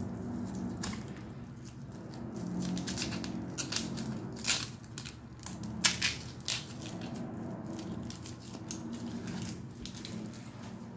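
An onion being peeled by hand: its dry, papery outer skin crackling and crunching in irregular snaps and clicks, the sharpest about four and a half and six seconds in, over a steady low hum.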